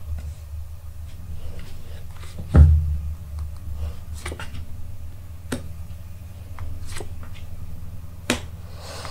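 Tarot cards being drawn off the deck and laid on the table: a few short, sharp card snaps and taps, with one louder soft thump about two and a half seconds in, over a low steady hum.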